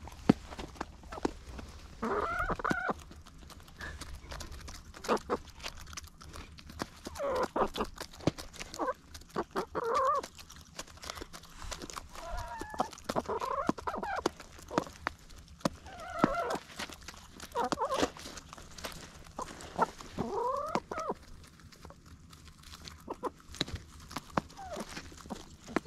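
Hens clucking and calling while they feed, short bending calls every few seconds, over many sharp taps of beaks pecking at the food.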